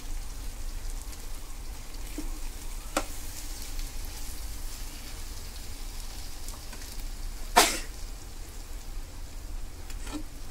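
Pea and potato curry sizzling softly in a kadhai while a metal ladle stirs it. A few sharp clinks of the ladle against the pan stand out, the loudest about seven and a half seconds in.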